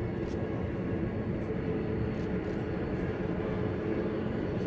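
Steady drone of the AG600 amphibious aircraft's four turboprop engines running as it taxis on the water.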